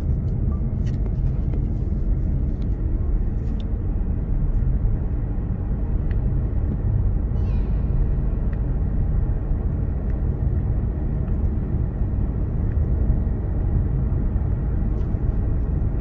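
Steady low rumble of a car driving, heard from inside the cabin: tyre and engine noise on the road.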